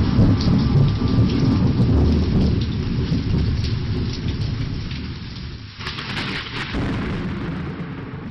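Thunder rumbling under steady rain. The rumble is loudest at first and slowly fades away.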